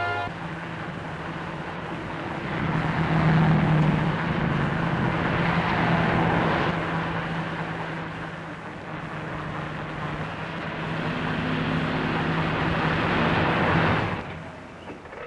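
A car driving: engine hum and road noise, swelling and easing, cutting off sharply about a second before the end.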